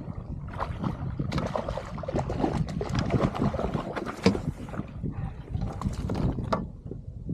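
A hooked fish splashing at the surface beside a kayak as it is drawn in and scooped into a landing net, a run of sharp splashes and water crackle. Under it, a steady low rumble of wind and water against the kayak.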